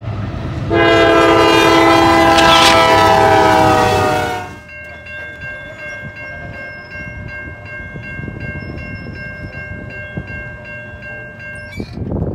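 Horn of a Norfolk Southern GE Dash 9-44CW locomotive sounding one long blast, cut off abruptly about four and a half seconds in. A railroad crossing bell then dings about twice a second, and a brief rush of noise comes just before the end.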